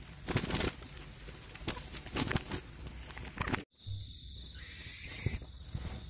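Rustling and crackling of dry grass, net and cloth as a freshly caught quail is handled by hand, with a few sharp scuffles. About two-thirds of the way through the sound cuts, and a steady high-pitched tone with hiss follows.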